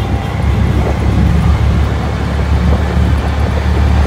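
Auto-rickshaw running along a road, heard from inside its open passenger cabin: a steady low engine drone with road noise.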